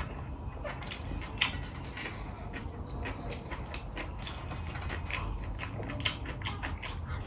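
Close chewing and wet mouth smacks from eating rice and curry by hand, a string of short sharp clicks, along with fingers mixing rice on a steel plate.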